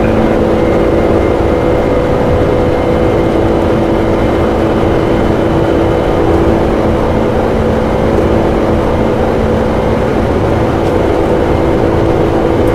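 Steady, loud roar on the flight deck of a Boeing 747-400 freighter: the engines and airflow make an even rumble under a few constant hum tones, with no change in pitch or level.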